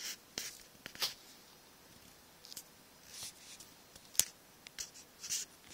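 Hand-held camera handling noise: a few short soft rustles and scrapes, with one sharp click about four seconds in.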